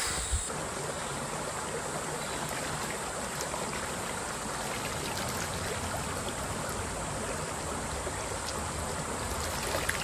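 Shallow mountain stream running over rocks: a steady rush of water.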